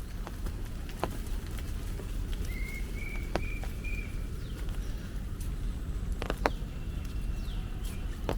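Outdoor park ambience: a steady low rumble with birds calling, one bird giving four short, even notes a few seconds in and more down-slurred calls near the end. A few sharp ticks sound now and then.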